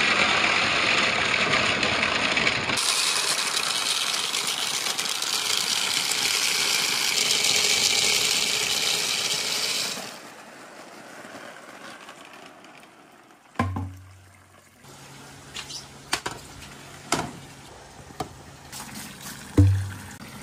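A big mass of marbles pouring and rolling down a marble run in a dense, rushing clatter that stops about halfway through. After that come scattered single clicks of marbles knocking against each other and the track, over a faint low hum.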